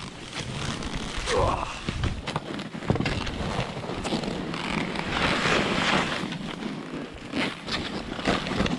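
Skis sliding and turning through deep powder snow, a continuous scraping hiss of snow with irregular knocks and thumps from the skis and poles, heard close up on a body-mounted action camera.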